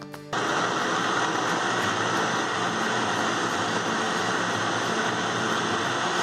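Countertop blender running at full speed, starting abruptly just after the start: its motor and blade churning cream and canned sweetcorn into a smooth purée. A steady, even whirring.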